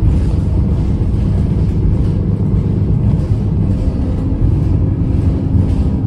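Alexander Dennis Enviro 300 single-deck bus heard from inside while under way: a steady low rumble of engine and road noise, with a faint steady hum coming in about four seconds in.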